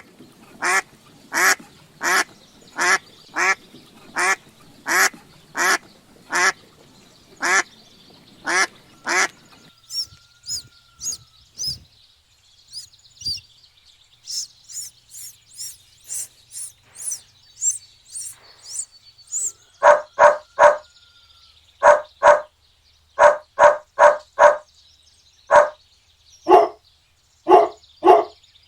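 Ducks quacking in an even series, then high-pitched duckling peeping from about ten seconds in, then louder quacks in pairs and short runs from about twenty seconds in.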